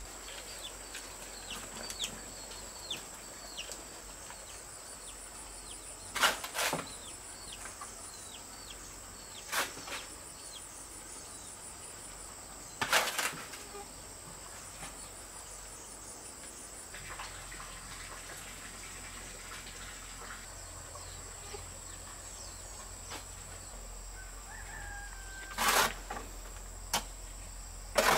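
Steady high drone of insects, with a cricket chirping in short trains and small birds chirping during the first several seconds. A handful of sharp knocks a few seconds apart are the loudest sounds.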